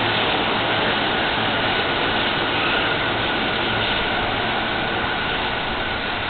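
JR East E233 series electric train pulling out and running away along the platform: a steady noise of wheels and running gear that slowly fades, with a faint high whine in the middle.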